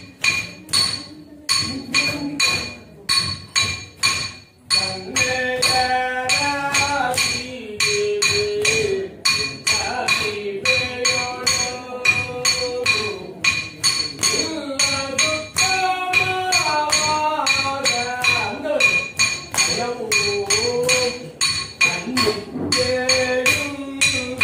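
Small bronze hand cymbals (tala) struck in a steady beat about twice a second, each stroke ringing, keeping time for Yakshagana dance steps. About five seconds in, a voice starts singing a melodic line over the beat.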